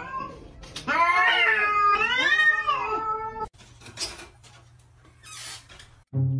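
A cat meowing: two long, drawn-out meows about a second in, each rising and falling in pitch. A few short noisy sounds follow.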